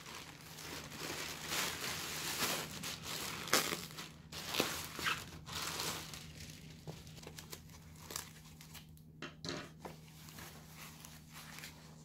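Plastic mailer bag and foam packing wrap crinkling and rustling as a parcel is opened by hand, busiest in the first half and thinning to lighter rustles and small clicks later.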